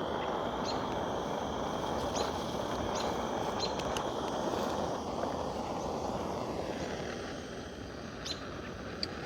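A small gas torch burning with a steady rushing hiss while it melts beeswax comb; the hiss eases about seven seconds in. A few faint, short high chirps sound over it.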